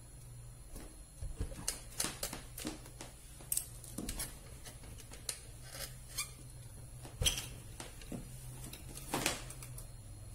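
Cotton fabric being handled at a sewing machine: scattered rustles and small clicks and knocks, a few louder ones, over a low steady hum.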